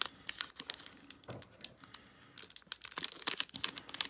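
Plastic crinkling and crackling as it is handled: a string of short, sharp crackles, busiest about three seconds in.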